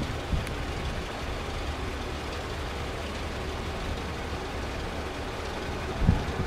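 Steady low rumble of a distant jet aircraft's engines, with wind buffeting the microphone in two brief low thumps, the stronger one about six seconds in.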